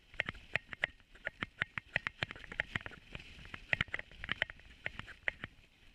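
Dog sled clattering as the huskies pull it over the snowy trail: a quick, irregular run of sharp clicks and knocks, several a second, some with a short metallic ring.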